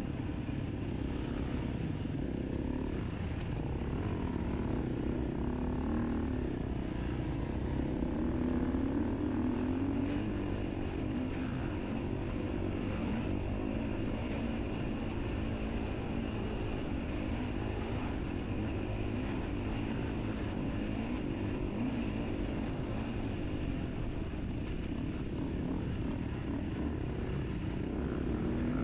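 Enduro motorcycle engine running continuously, its pitch wavering gently up and down.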